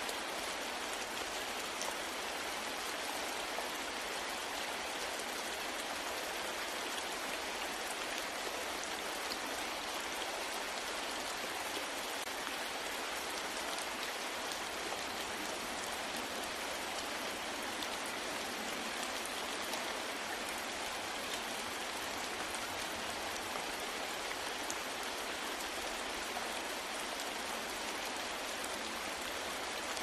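Waterfall: a steady rush of falling water, an even hiss with little low rumble and no breaks.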